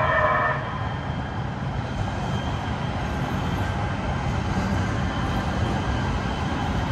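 LA Metro Rail light-rail train passing at street level, a steady rumble of wheels on the track.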